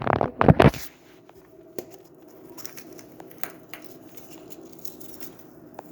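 Small toys and wrapped candy being handled and sorted: a loud burst of handling in the first second, then faint scattered clicks and light rustling of plastic wrappers.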